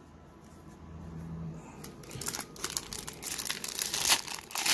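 Foil pack of 1991-92 Pro Set hockey cards being torn open by hand, the wrapper crinkling and ripping in quick crackly bursts. It starts about two seconds in and grows loudest near the end.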